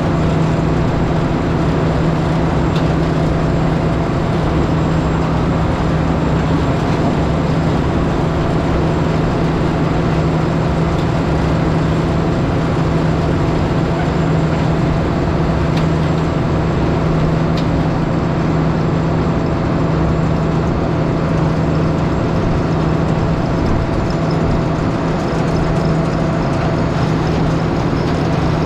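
Tractor engine running steadily at a constant speed, a continuous even hum with no changes.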